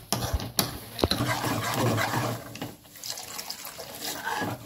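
Steel ladle scraping and knocking in a kadai as it stirs thick masala gravy, with a few sharp knocks in the first second, then water poured into the gravy.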